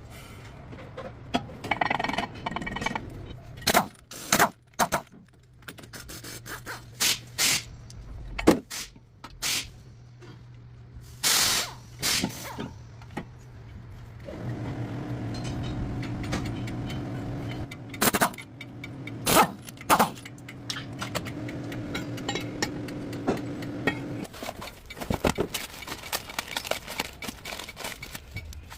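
Workshop tool noises on a GMC's front brake: scattered metal knocks, clicks and scrapes, with a steady mechanical hum running for about ten seconds in the middle.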